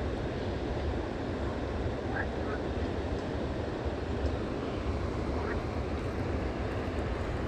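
Steady rushing riverside noise of flowing water, with a flickering low rumble and a few faint short chirps.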